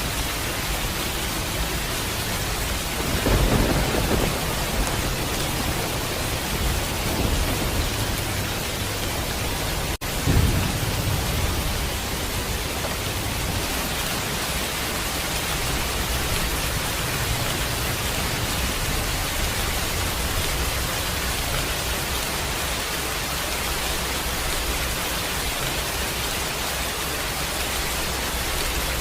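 Steady heavy rain with two low rolls of thunder, one about three seconds in and another about ten seconds in.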